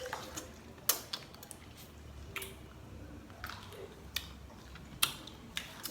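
Irregular crisp crunches and clicks of someone biting and chewing firm sour Marian plum fruit, about eight sharp ones spread unevenly, the loudest about a second in and near five seconds.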